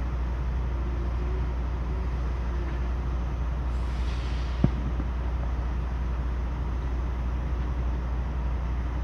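Steady low rumble of idling diesel trucks. A brief hiss comes about four seconds in, followed by a single short, sharp knock.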